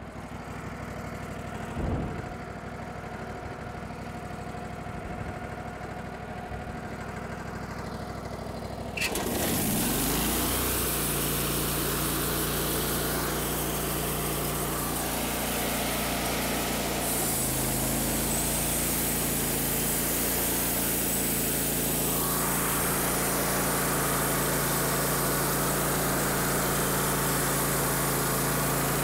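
Gas engine of a Wood-Mizer LT15 Wide bandsaw mill idling, then throttled up about nine seconds in with a rising pitch. It then runs steadily at speed as the band blade saws a board off a log, with a hiss joining in about halfway through.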